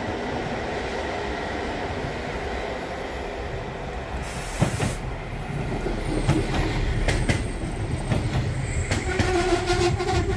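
Koleje Wielkopolskie electric multiple unit running past close by: a steady rumble that grows as it nears, then the clack of its wheels over rail joints from about the middle on, with a squeal joining near the end.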